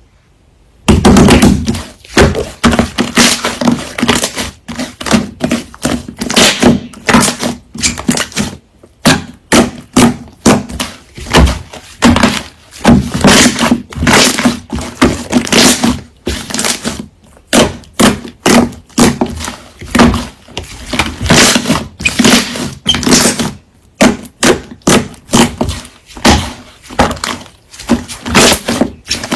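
Loud, irregular banging and thudding, one to three hard knocks a second, starting suddenly about a second in, like construction-site noise.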